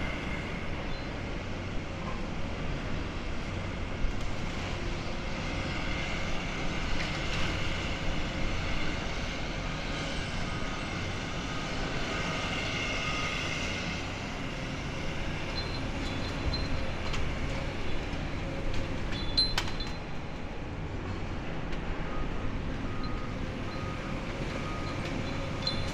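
Demolition excavator with a hydraulic concrete crusher working into a building: steady diesel engine and hydraulic noise, with a drawn-out high screech between about six and fourteen seconds and a single sharp crack about three-quarters of the way through.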